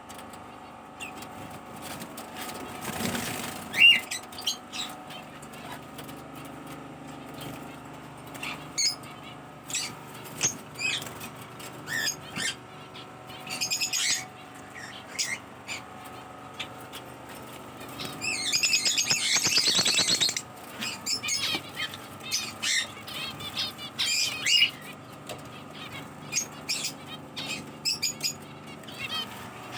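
Pet birds chirping with short scattered calls, with bouts of wing flapping; the loudest stretch is a dense two-second flurry about two-thirds of the way through.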